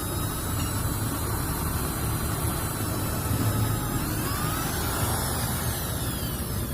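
Electric drill spinning an engine valve against its seat coated with oil and lapping compound: a steady motor whine over a coarse grinding, the whine's pitch shifting a little past the middle.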